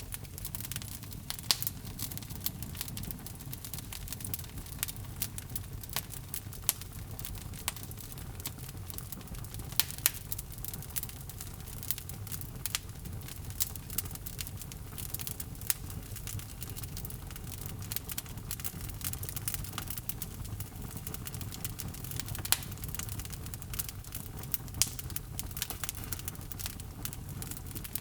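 Log fire burning in a fireplace: a steady low rumble of the flames with irregular sharp crackles and pops from the burning logs, several a second.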